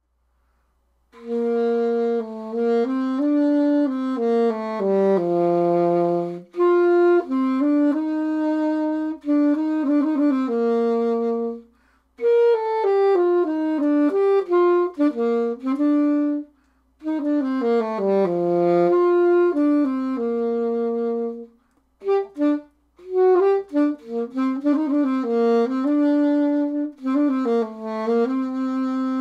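Unaccompanied alto saxophone playing a solo piece in melodic phrases, with short breath pauses between them and a passage of short detached notes a little past two-thirds of the way through.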